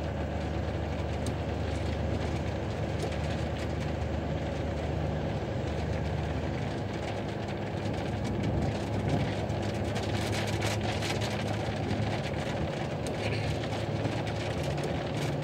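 Inside a truck cab on the move: the diesel engine running steadily under the hiss of wet road and tyre noise.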